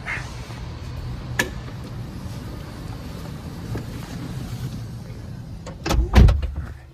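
Steady low rumble of a car driving, heard from inside the cabin, with a sharp click about a second and a half in and two heavy thumps near the end.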